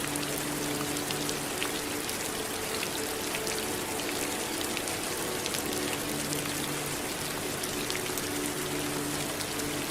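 Steady rain falling, with many separate drops ticking against a continuous hiss.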